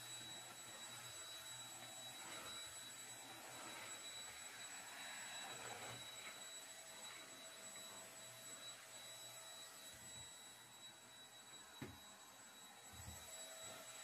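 Red-and-white corded stick vacuum cleaner running, heard faintly as a steady high whine over a soft hiss.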